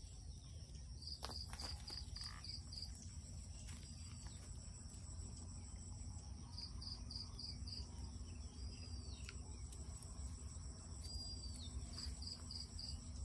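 Insects chirping in a continuous high, fast trill, with groups of four to six short high chirps about a second in, around seven seconds in and near the end, and a few short high sliding calls between them.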